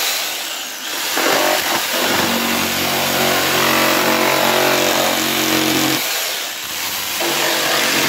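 Corded power saw cutting through the plastic and foam lid of an ice chest. The motor runs steadily, drops briefly about a second in, runs again, and drops once more about six seconds in before picking back up.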